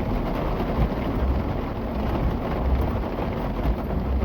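Heavy rain falling steadily, with a low rumbling underneath.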